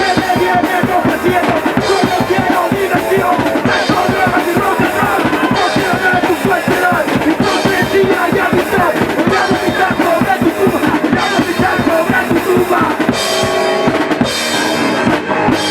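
A punk rock band playing loud, with fast, driving drums. Near the end the drumming thins out and held notes ring on.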